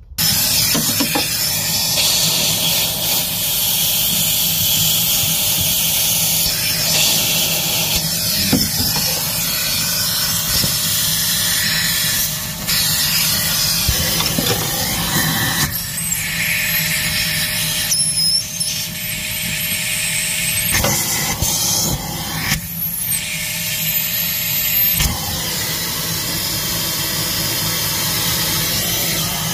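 Shop vac with a narrow detail nozzle running, switched on abruptly, sucking debris out of a rear sunroof drain tube. It makes a steady, loud hissing rush of air with a high squeal, and the sound changes a few times as the nozzle is shifted against the drain.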